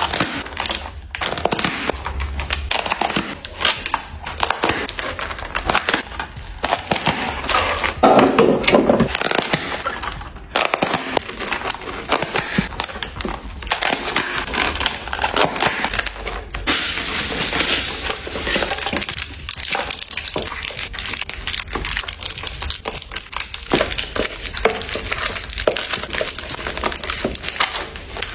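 Food packaging and containers being handled while a fridge is restocked: a dense run of crinkling, crackling and small clicks and knocks. The sound changes abruptly several times, as at cuts between clips.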